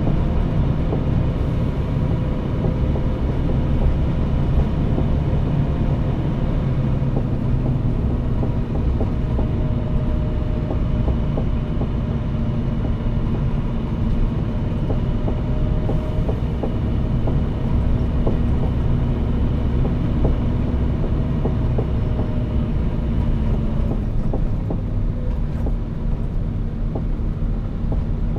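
Scania P360 truck's diesel engine running on the move over a heavy road rumble. It makes a steady drone whose pitch drifts up and down a little.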